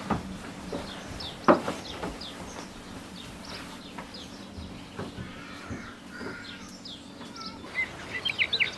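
Small birds chirping in short, quick falling notes, over a low steady hum that stops near the end. A few sharp knocks come through, the loudest about a second and a half in.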